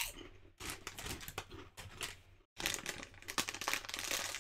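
Foil Doritos 3D Crunch chip bag crinkling as it is handled, in two stretches with a brief break about halfway.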